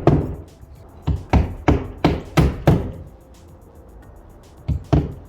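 Repeated hand-tool knocks on stone, about three a second, tapping a piece of precast or stone down to set it in its mortar bed. They stop for about two seconds and then start again near the end.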